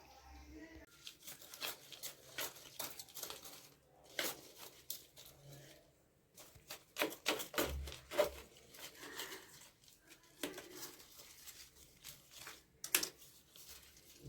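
Irregular clicks, scraping and tearing sounds of close-up hand work, with several sharper clicks at intervals.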